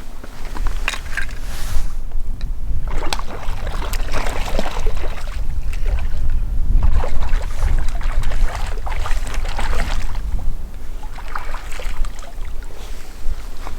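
Wind buffeting the microphone as a steady low rumble, with irregular splashing and sloshing of water on top.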